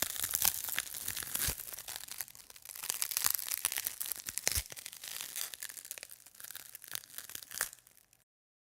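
Dense crackling and crinkling made of many small sharp clicks, in uneven surges, that stops abruptly near the end.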